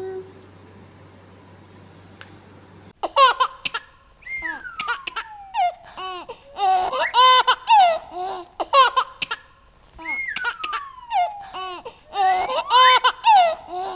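A baby laughing and giggling in repeated high bursts, with a long falling squeal twice, starting about three seconds in after a faint low hum.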